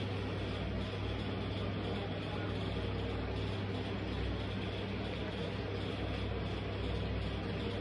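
Steady low mechanical hum over an even hiss, holding at one level throughout, with no distinct footsteps or squashing sounds standing out.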